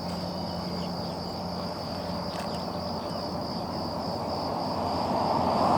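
Steady high-pitched insect trill in a marsh, over a low hum of distant traffic. Near the end a passing vehicle grows louder.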